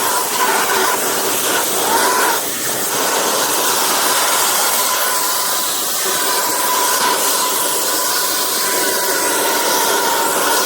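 Kärcher WD 2 Plus wet and dry vacuum cleaner running steadily: a loud rush of air with a whine over it.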